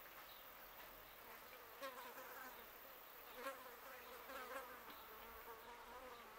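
A flying insect buzzing faintly, starting about two seconds in and wavering in pitch as it comes and goes, with a few soft clicks.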